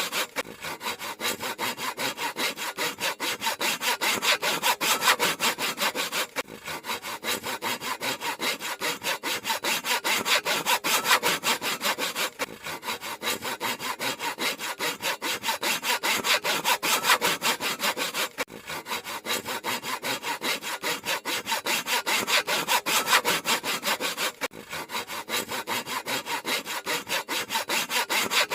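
Handsaw cutting through wood in quick, steady back-and-forth strokes, with a brief break in the rhythm about every six seconds.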